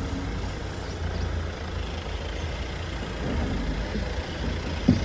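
Safari vehicle's engine idling with a steady low rumble, and a single short knock just before the end.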